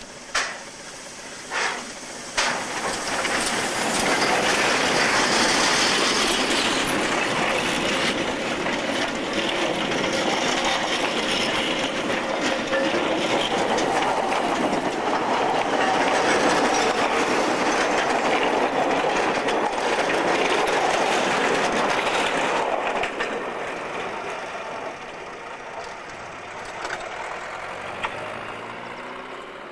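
Narrow-gauge steam train passing close by: a few sharp beats in the first two seconds, then the carriages rolling past with their wheels clattering over the rails. The sound fades away from about 23 seconds in.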